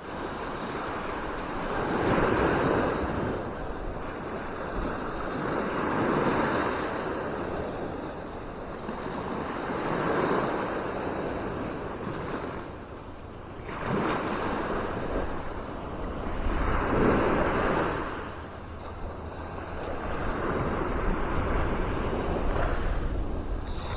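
Sea waves washing in and drawing back, one surge about every four seconds, with wind rumbling on the microphone.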